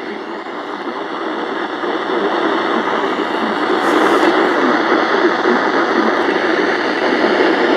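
Radio static: a NOAA weather radio receiver hissing on a frequency whose transmitter is off the air. The hiss swells in loudness over the first few seconds, then holds steady.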